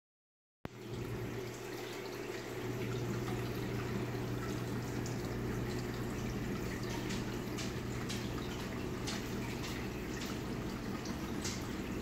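Water splashing and trickling steadily from a reef aquarium's waterfall, with scattered drips that come more often in the second half, over a steady low hum.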